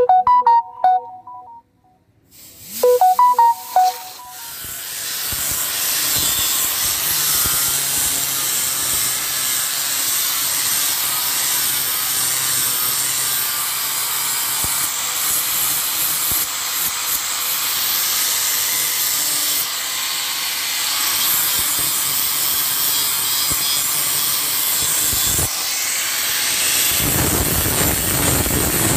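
Two short ringing tones in the first few seconds, then an angle grinder grinding the edge of a steel machete blade: a steady, loud, high hiss that turns coarser near the end.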